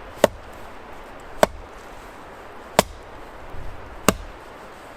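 Axe striking wood four times, about one blow every second and a quarter, each a sharp chop: splitting firewood.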